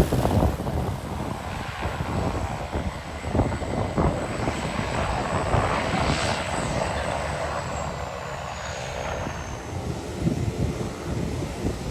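Small propeller airplane's engine running as it arrives, with a thin high whine that slides down in pitch about two-thirds of the way through. Gusty wind buffets the microphone throughout.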